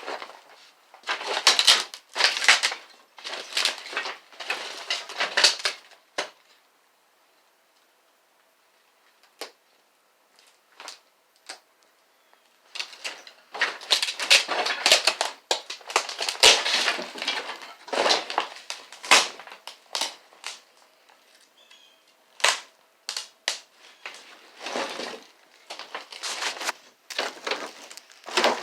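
Demolition work: repeated bouts of material being broken apart, clusters of cracks and crunches, with a pause of several seconds near the middle before it starts up again.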